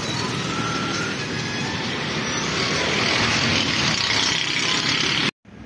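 Yutong Master coach driving past close by in busy street traffic, its engine and tyre noise swelling as it goes by. The sound cuts off suddenly near the end.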